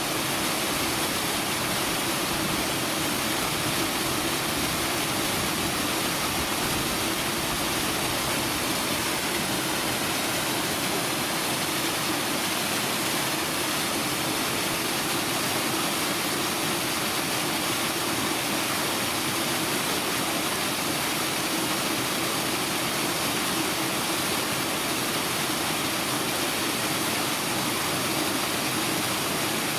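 Steady rushing noise with a low hum underneath, even in level throughout, with no distinct events.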